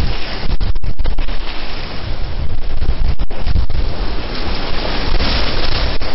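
Whitewater rapids rushing loudly around a kayak, with the water and wind buffeting the camera's microphone; the sound cuts out briefly a few times, around one second in and again about three seconds in.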